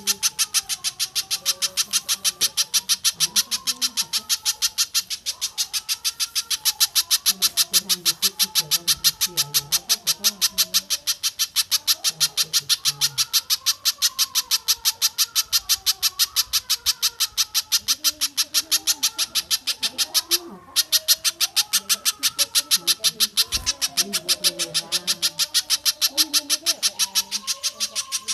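Bird-song training recording of spiderhunter and stork-billed kingfisher calls. A fast, even series of sharp high calls comes about four a second, with a brief break about two-thirds through. Softer warbling bird calls run underneath.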